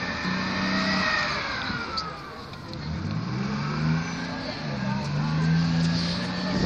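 FV432 armoured personnel carrier running across open ground, its engine note dipping about two seconds in and then climbing again as it revs, with a high whine that falls and rises over it.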